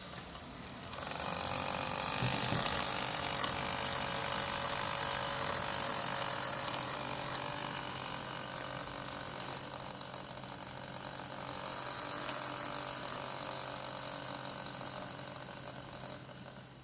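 Antec Kühler 620 liquid cooler pump making a rough, ratcheting rattle that starts about a second in, swells again partway through and dies away near the end, over a steady low hum.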